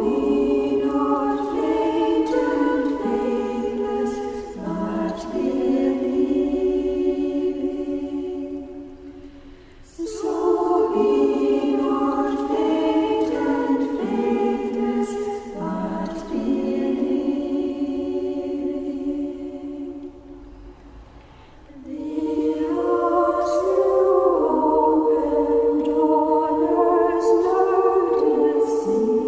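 Choir singing unaccompanied in long, sustained phrases, with short breaks about nine and twenty-one seconds in.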